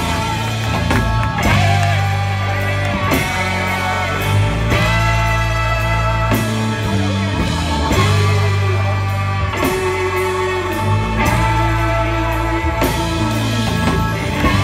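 Live rock band playing through a PA, with electric guitars, bass, drums and a horn section.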